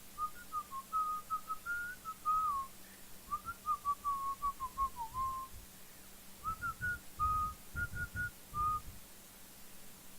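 A person whistling a tune to themselves in quick, hopping notes, with a short break partway through. A few low thuds come during the second half of the tune.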